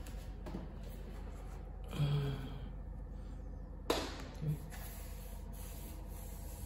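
Hands handling the plastic casing of a Dell P2419H monitor: a soft rustle about two seconds in, then a sharp tap just before four seconds and a lighter knock just after, over a steady low hum.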